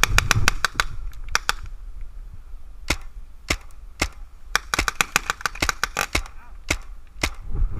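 Tippmann A-5 paintball marker firing: sharp pops in rapid strings of several shots, with short pauses between strings.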